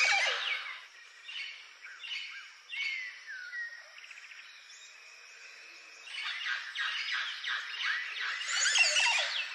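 Montezuma oropendolas calling at their nesting colony: many quick rising and falling whistled notes, overlapping as from several birds, in bursts with a quieter lull in the middle. The calls go with the males' display, in which the bird bows forward with wings spread and the yellow tail raised.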